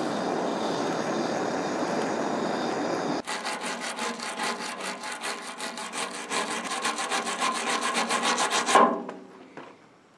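A propane torch flame hissing steadily on a cast-iron ring gear. About three seconds in it gives way to a stiff hand brush scrubbing the gear teeth in rapid back-and-forth strokes, about seven a second, working at petrified grease, which stop near the end.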